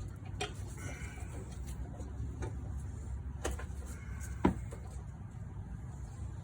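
A few scattered light clicks and knocks from a bungee cord and its hooks being handled and fitted to hold the strut's knuckle. The loudest knock comes about four and a half seconds in, over a steady low hum.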